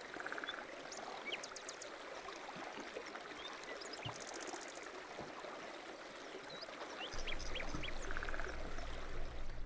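Steady rush of running water, like a stream, with a few short trilling animal calls and high chirps over it. A low steady hum comes in about seven seconds in.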